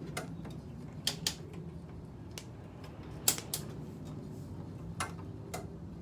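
Scattered sharp clicks, about eight at irregular spacing, from the thermostat control of a 1989 Carrier window air conditioner being turned with the unit switched off, over a faint low hum.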